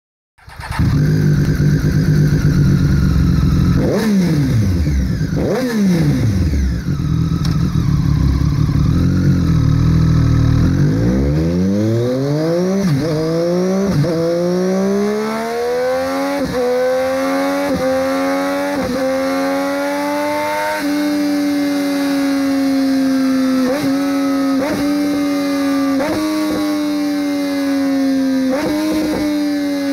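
Triumph Street Triple 765's three-cylinder engine through a Zard short stainless slip-on exhaust. It idles with two quick throttle blips about four and five and a half seconds in. From about twelve seconds the revs climb steadily and are held high with several brief dips, easing slightly near the end.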